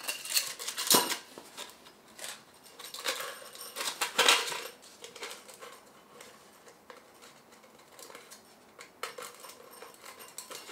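Thin metal stove parts being handled and fitted together: clinks, scrapes and rustling, loudest about a second in and again around four seconds.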